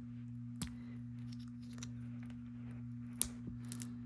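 A few sharp, small clicks of tools and tiny phone parts being handled during a smartphone teardown, one about half a second in and a quick cluster near the end, over a steady low hum.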